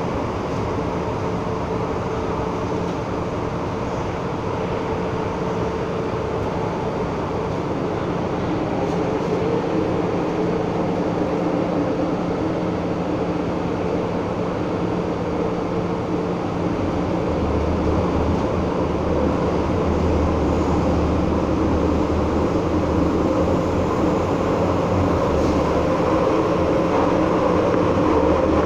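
MTR M-Train electric multiple unit running through an underground tunnel, heard from inside the car: a steady rumble of wheels on rail with a constant motor hum. It grows gradually louder through the second half, and a deeper hum comes in partway through.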